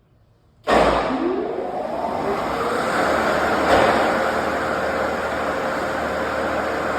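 Wood-Mizer EG400 board edger coming on suddenly less than a second in, with a whine rising for the first couple of seconds, then running steadily and loudly.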